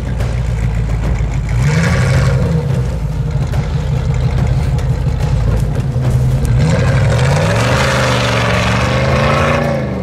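Off-road 4x4 engine revving up and down under load, the pitch rising about two seconds in and climbing and falling again from about seven seconds on, with a rushing hiss at each rise.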